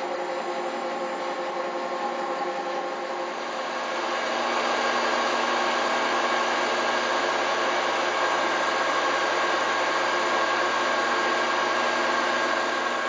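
Emco Super 11 CD metal lathe running, a steady whine from its motor and gears with several tones at once. It grows somewhat louder and noisier about four seconds in.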